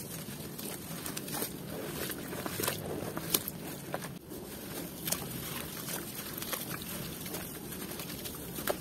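Hands squeezing and breaking up a soaked lump of red dirt in a basin of muddy water: wet squelching and splashing with irregular sharp slaps, the loudest about three and a half seconds in.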